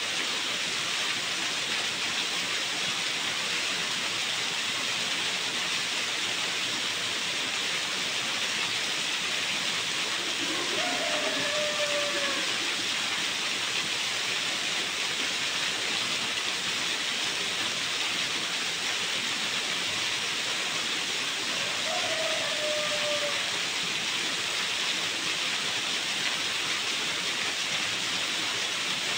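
Small garden waterfall: water falling and splashing steadily into a pool, a continuous even hiss. Twice a short faint falling tone sounds over it.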